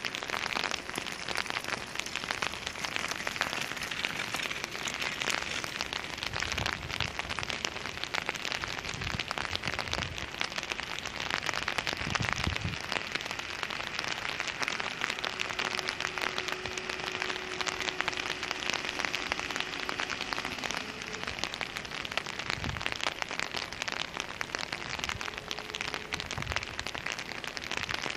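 Steady rain falling on an umbrella held over the microphone, a dense even crackle, with a few dull low thumps and a faint steady tone lasting several seconds midway.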